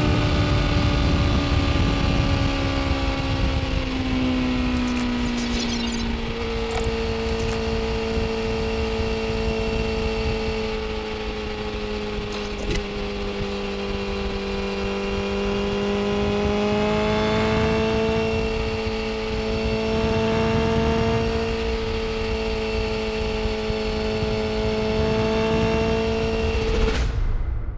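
BMW S1000RR's inline-four engine running under way with heavy wind rush. The engine note falls over the first few seconds as the bike slows, then holds a steady cruising pitch, rising slightly about two-thirds of the way through, before cutting off abruptly just before the end.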